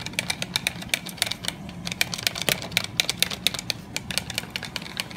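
Wire whisk beating brown gravy mix and water in a plastic measuring jug: a rapid, uneven clicking of the wires against the jug's sides.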